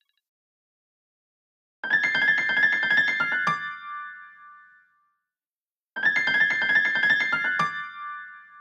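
An iPadOS 26 ringtone: a short melody of quick notes ending on a held note that fades out, starting about two seconds in and playing again about four seconds later.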